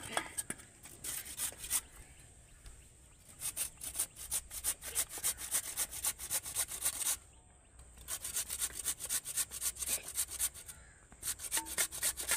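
Raw peeled potato being grated on the coarse, large-holed side of a flat stainless-steel grater: quick rasping strokes, about five a second, in runs broken by brief pauses.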